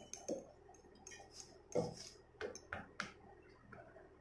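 Wire whisk clinking and scraping against a stainless steel bowl as it works a thick flour-and-jaggery dough, in faint irregular strokes.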